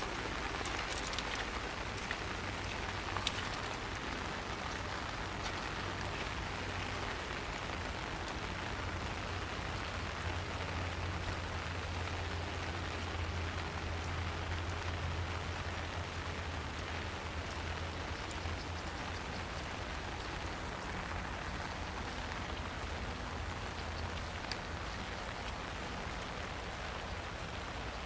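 Steady rain falling on forest trees, with scattered single drops ticking louder, over a low steady hum.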